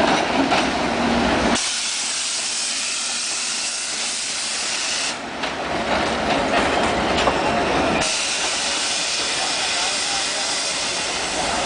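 Passenger train at a station platform letting off a loud hiss of air that cuts in sharply about a second and a half in and stops about eight seconds in. Rumbling train noise runs before and after the hiss.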